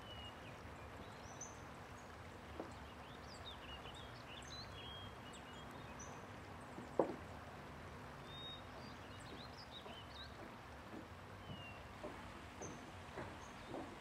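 Quiet outdoor ambience with small birds chirping in short, scattered calls. A single sharp knock comes about seven seconds in, and a few evenly spaced footsteps start near the end.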